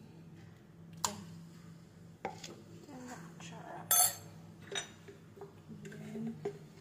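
Kitchenware clinking and knocking a few times, sharp and brief, the loudest clink about four seconds in, over a steady low hum.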